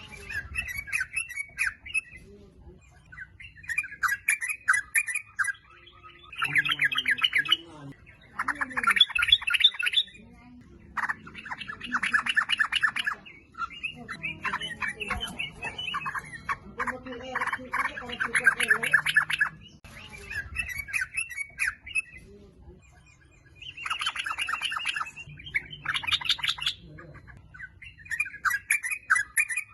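Yellow-vented bulbul (trucukan) singing: repeated phrases of quick, bubbly chattering notes, each a second or two long, with short pauses between them.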